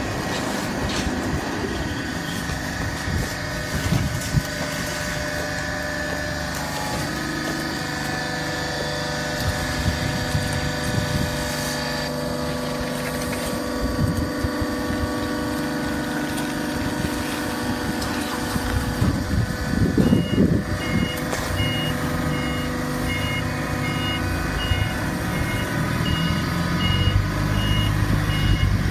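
Hydraulic cardboard baler running: the steady hum of its motor and pump, with occasional low knocks. About two-thirds of the way through, a steady, evenly spaced electronic beeping starts and runs on.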